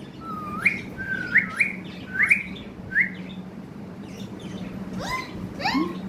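Indian ringneck parrot giving short, rising whistled chirps, about one every half second for the first three seconds, then two more rising calls near the end, over a steady low hum.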